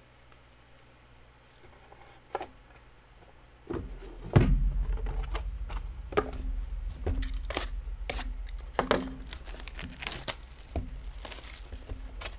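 Trading card box and packs being opened by hand: wrapping tearing and crinkling, with sharp clicks, rustles and handling thumps. The sounds start about four seconds in, after a quiet start.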